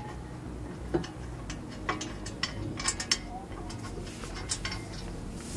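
Light, irregular metallic clicks and taps of a steel front brake caliper mounting bracket and its bolt knocking against the steering knuckle as the bolt is started by hand.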